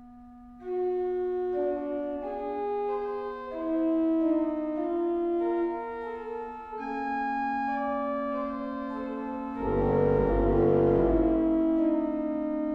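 Kreisz pipe organ playing: a quiet held low note, over which a melody of single notes enters about half a second in. Near the ten-second mark a louder passage with deep bass notes swells in, then eases back to the held note.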